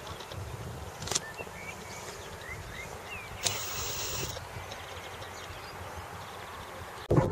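Outdoor ambience under a storm sky: a low rumble of wind with scattered bird chirps. Near the end, a sudden gust of wind hits the microphone and the rumble gets much louder.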